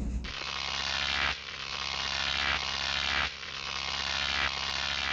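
A steady electric buzzing drone, with a low hum beneath, that shifts slightly in level and tone every second or so.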